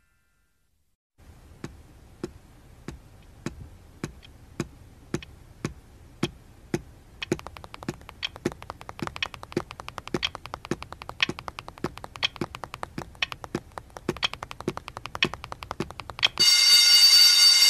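Opening of a pop track after a short silence: a steady ticking beat, a little under two ticks a second, over a low hum. About seven seconds in, more ticks fill in between and the beat gets busier. Near the end the full backing music comes in loudly.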